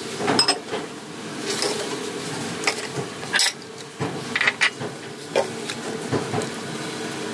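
Metal ladle stirring vegetables in coconut milk, knocking and scraping against the side of a metal pot in irregular clinks, with the loudest knock about three and a half seconds in. A steady low hum runs underneath.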